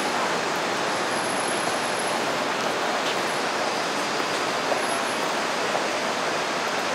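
Steady, even rushing noise of a city street, with no distinct event standing out.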